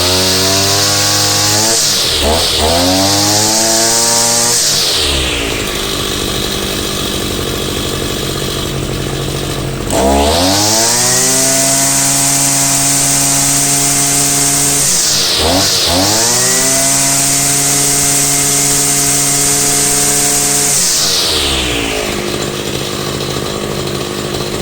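Husqvarna 143R-II brushcutter's two-stroke engine revved to full throttle twice, each burst held for several seconds with a brief dip in the middle, settling back to a steady idle between and near the end. This is a test run after a clutch replacement, and the engine idles smoothly, well regulated, with the cutting line not turning.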